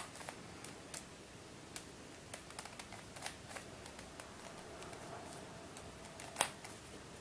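Shengshou 3x3 speed cube being turned by hand: scattered plastic clicks of its layers moving, with one louder click about six seconds in. The new cube is stiff, its tension set tight.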